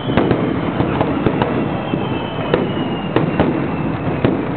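Fireworks display: a rapid, irregular run of sharp bangs and crackles over a continuous rumble of bursts.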